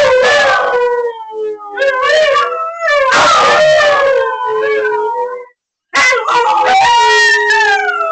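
Siberian husky howling: a string of long howls that waver up and down in pitch, breaking off briefly about five and a half seconds in before starting again.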